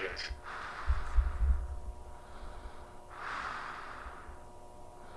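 A man breathing slowly and heavily, two long breaths about three seconds apart, over a faint steady electrical hum, with a low rumble about a second in.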